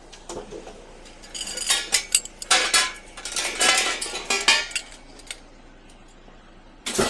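Pieces of scrap metal clanking and clinking against each other as they are handled, a quick irregular run of metallic knocks that fades out about five seconds in.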